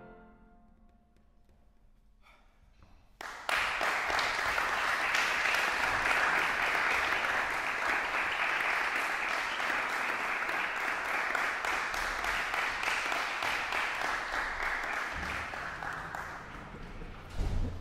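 The last chord fades in the hall's reverberation, followed by a couple of seconds of hush. Then audience applause starts suddenly about three seconds in, runs steadily and tapers off near the end.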